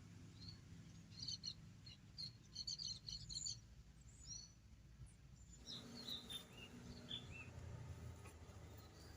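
Wild birds chirping faintly: quick clusters of short high chirps in the first few seconds, then a run of short falling notes past the middle, over a faint low rumble.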